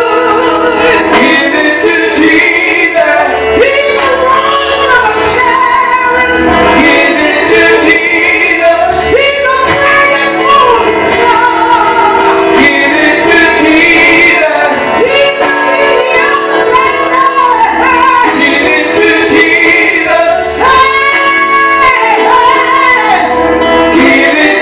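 Gospel singing led by a woman's voice through a microphone, loud and amplified, with music behind it and no break.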